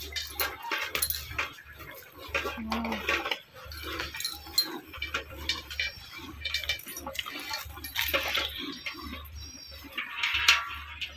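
Water buffalo being hand-milked into a steel pail: quick, rhythmic squirts of milk striking the metal, with metallic clinks.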